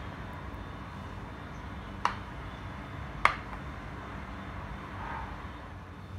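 Two sharp clicks, a little over a second apart, from a metal spoon knocking against the ceramic plate of flour while coating chicken pieces. A steady low background rumble lies under them.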